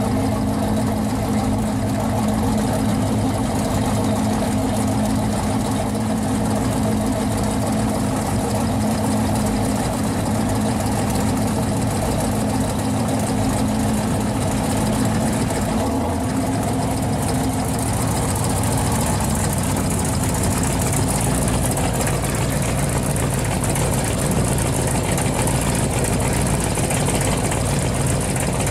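1969 Chevrolet Chevelle SS's V8 engine running at a steady idle. Its tone shifts a little past the halfway point.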